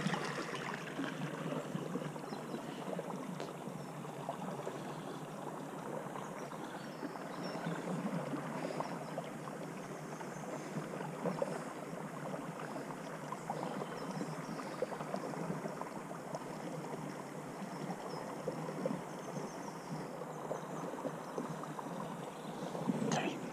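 Water running steadily in a small stream channel, a continuous even rush with no distinct events.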